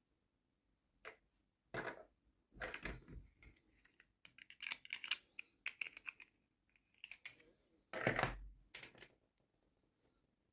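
Hands handling small plastic toy pieces and packaging: scattered clicks and taps, with a stretch of crinkling and scratching in the middle.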